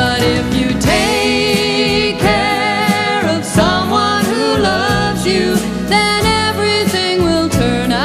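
A woman and a man singing a duet to strummed acoustic guitar, with long held notes.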